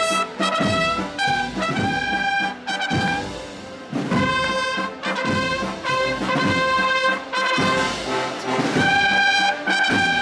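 A brass band of trumpets, trombones and tuba playing a slow processional march in long held notes, with drum strokes underneath.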